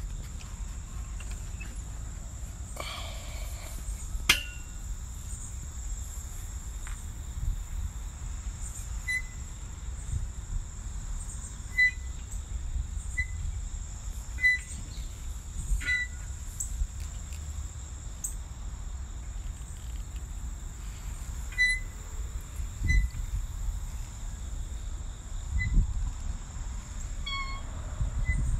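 Insects chirring steadily in the trees and grass, with a low rumble on the microphone. Short high peeps come every second or two through the middle and end.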